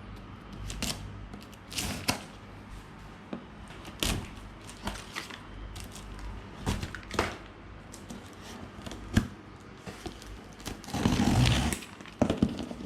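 Unboxing handling sounds: scattered knocks, taps and short scrapes of a box and its packaging being handled, with one longer, louder rustling scrape about eleven seconds in.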